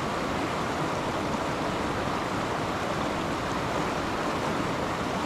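Steady rush of flowing stream water running over rocks.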